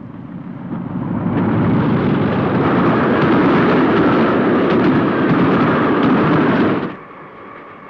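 Sound effect of a speeding train running: a loud rushing rumble that builds over the first two seconds, holds steady, then cuts off abruptly about seven seconds in.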